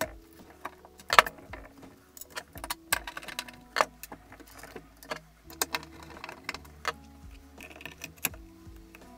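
Sharp metallic clicks and clinks of screws, hardware and a screwdriver against a slotted binding mounting plate on a ski, coming quickly and irregularly throughout.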